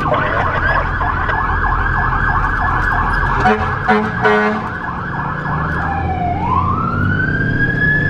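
Fire rescue truck's siren in a fast yelp, about three sweeps a second. Three short air-horn blasts come about three and a half seconds in, then the siren switches to a slow wail that rises near the end, with the truck's engine running underneath.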